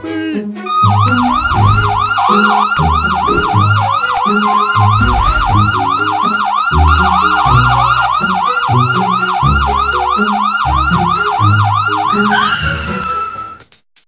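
Police car siren in a fast yelp, rising and falling about four times a second, over background music with low bass notes. The siren stops about a second before the end.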